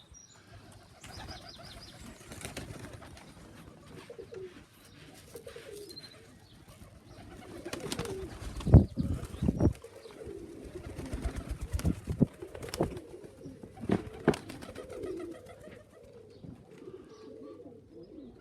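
Domestic pigeons cooing around the loft, with a few sharp knocks in the middle, the loudest about nine seconds in.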